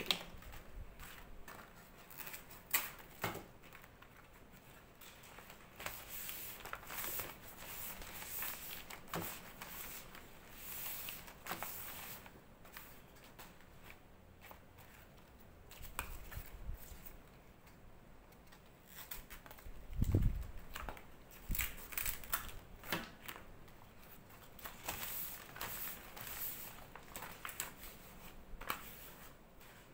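Large green wrapping leaves being handled, rustled and cut with scissors: scattered crinkling, snips and small clicks, with one louder dull thump about twenty seconds in.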